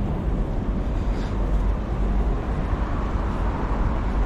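Steady city street noise: a low traffic rumble with an even hiss over it.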